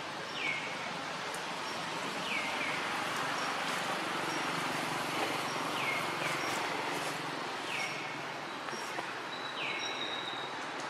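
Outdoor forest ambience: a steady background hiss, and a bird repeating a short call that drops sharply in pitch, about every one to two seconds, with faint high ticks between the calls.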